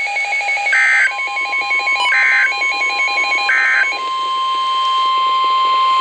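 NOAA Weather Radio alert signals through weather alert radios: three short bursts of digital SAME/EAS data tones about a second and a half apart, over a rapid pulsing alert beep that stops about four seconds in. A long steady warning tone comes in about a second in and holds on.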